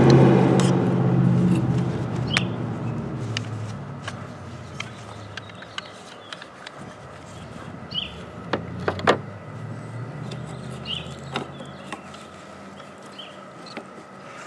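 A motor vehicle's engine running close by, loudest at the start and fading away over several seconds. Two sharp plastic clicks about nine seconds in as the wiper blade is worked onto the arm, with birds chirping now and then.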